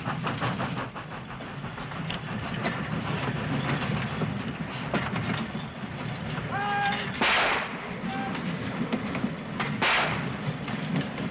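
Freight train cars rolling along the track, a steady rumble with the clatter of wheels on the rails. Two loud bangs come about seven and ten seconds in.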